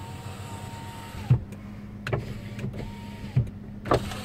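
Power window motor in a 2007 Ford F-150 XLT whining steadily as the glass runs up, ending in a thump about a second in. A second, shorter run of the motor ends in another thump, and there are a couple of sharp clicks.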